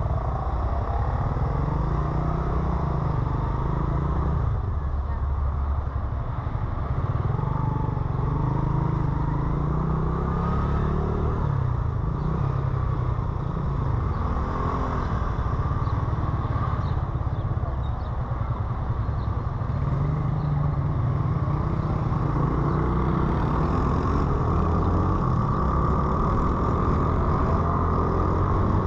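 Motorcycle engine running while riding through city streets, its note rising and falling repeatedly as the bike speeds up and slows, over a steady background of traffic.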